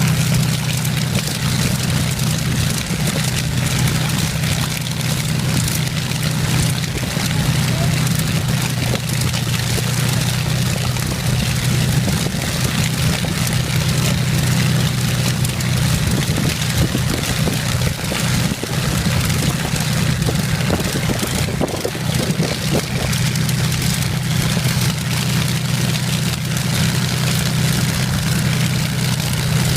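Rolls-Royce Merlin V12 aero engine running steadily, a constant low drone that neither rises nor falls.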